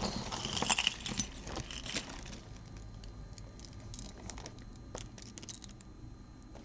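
Costume jewelry pieces (beads, chains, earrings) clinking and rattling as they are handled and picked apart from a tangled pile: many small clicks, busiest in the first couple of seconds, then scattered.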